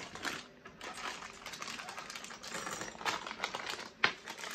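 Packaging and small parts being handled: a steady run of rapid small clicks and rustles.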